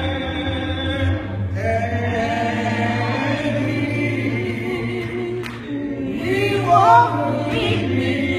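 A choir singing a cappella, with several voices holding and moving between sustained notes without instruments.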